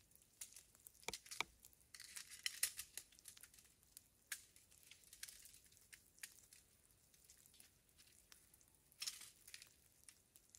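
Faint, scattered clicks and crinkly rustling from tent pole sections being fitted together and handled.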